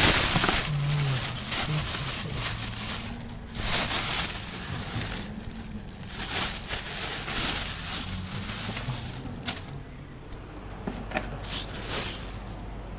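Plastic bags rustling and crinkling as hands rummage through discarded vegetables, radishes and carrots, loudest in the first few seconds.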